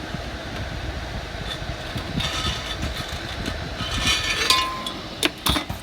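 A metal exhaust manifold flange is scraped back and forth over coarse (60-grit) sandpaper, a rough rubbing noise that grows brighter on a couple of strokes. It is the work of grinding the pitted mating face flat. A few sharp clicks come near the end.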